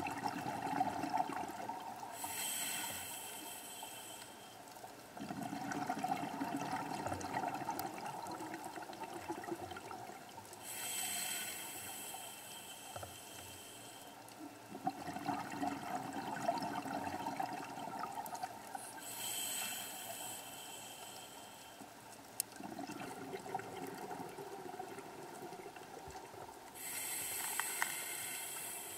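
Scuba diver breathing underwater through a regulator: a short hiss of inhalation alternates with a longer rush of exhaled bubbles, in a slow cycle repeating about every eight seconds, four breaths in all.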